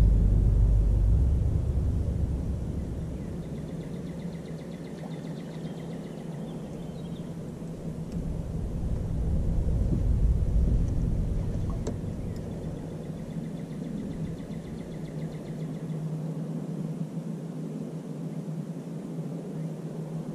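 Low wind rumble on the microphone, swelling twice. Twice, for a few seconds each, there is a rapid, even ticking in a higher pitch.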